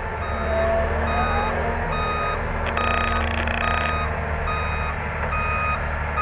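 Vehicle reversing alarm beeping at a regular pace over the steady low rumble of heavy diesel mining machinery. A short knock is heard about three seconds in.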